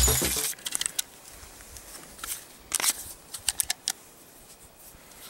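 Intro music cutting off about half a second in, then scattered small clicks and taps as hands handle a Glock pistol.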